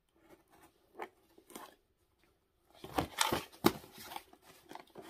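A cardboard mail box being opened by hand. There are a few soft handling sounds, then from about three seconds in paper and cardboard crinkle and tear, with a couple of sharper clicks.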